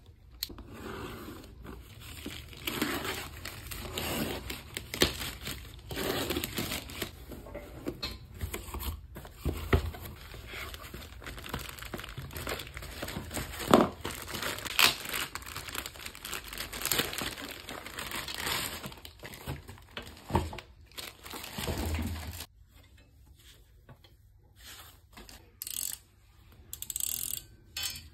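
Plastic packaging crinkling and tearing, with cardboard box handling, as a laptop stand is unwrapped by hand. It goes quiet about three-quarters of the way in, then the stand's rotating base gives a few clicks near the end.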